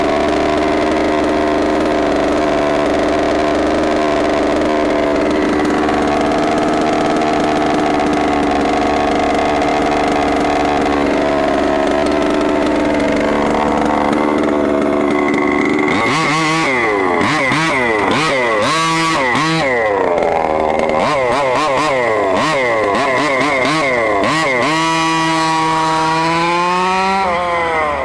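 Small gas two-stroke engine of a 1/5-scale Redcat Rampage MT RC monster truck idling steadily. From about halfway it is revved up and down in quick blips, and near the end it is held at higher, rising revs as the truck pulls away.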